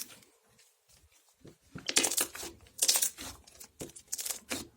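Basic slime being squeezed and stretched by hand, making sticky squishing sounds in irregular bursts that start about a second and a half in.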